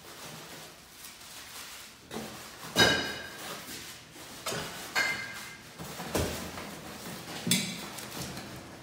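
Ceiling fan parts being unpacked from a cardboard carton: handling and rustling of packing, with about five sharp knocks, several ringing briefly. The loudest knock comes about three seconds in.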